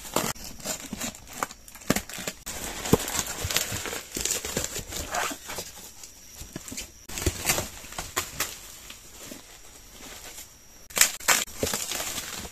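Plastic bubble wrap and packing tape crinkling and crackling as a parcel is cut open and figure boxes are unwrapped by hand, in irregular bursts with short clicks. A louder flurry of crackling comes near the end.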